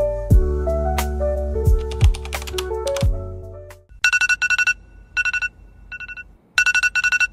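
Background music with piano, bass and drums fades out about four seconds in. A wake-up alarm follows, sounding short bursts of rapid high beeps again and again.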